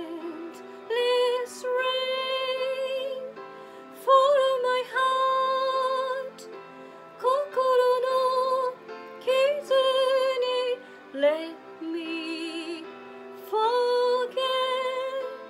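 Woman singing a slow, tender ballad solo, her held notes wavering with vibrato, in phrases of one to two seconds with short breaks between them.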